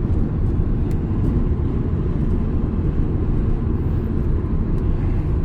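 Steady low road and engine rumble inside a moving car's cabin, with a few faint ticks.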